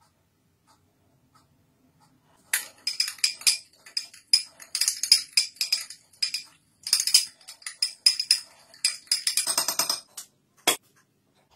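Metal teaspoon stirring sauce in a small drinking glass, clinking rapidly against the glass walls with a ringing tone, starting a couple of seconds in. One sharper tap on the glass comes near the end.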